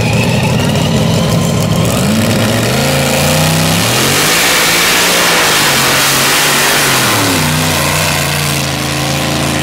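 A competition pulling tractor's engine revs up hard and runs at full throttle while dragging the weight-transfer sled. About halfway through it is at its loudest with a rush of exhaust noise, then the pitch drops and it runs on at a steady lower speed.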